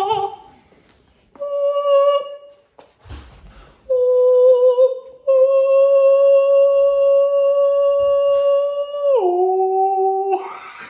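A man singing wordless held notes in a high voice: a short note first, then a long note held for about four seconds that drops to a lower note near the end.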